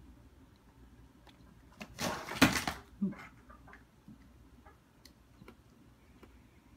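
A cat jumping down off a stack of cardboard boxes: a short, loud scuffle and thump about two seconds in, followed by a smaller knock. Then a few faint taps as its paws reach up onto the cardboard box.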